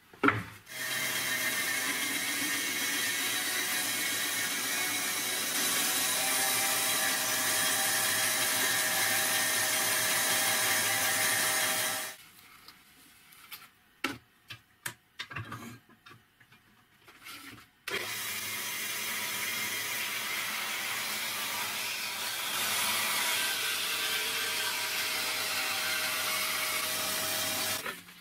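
Homemade band saw with a metal-cutting blade sawing through a piece of chipboard for about eleven seconds. After a pause with a few knocks as the next piece is handled, it cuts through a plastic pipe for about ten seconds and stops just before the end.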